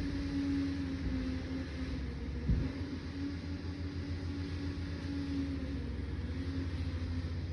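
Liebherr 746 crawler dozer's diesel engine running steadily under work, a low pulsing drone with a held hum above it, and a single knock about two and a half seconds in.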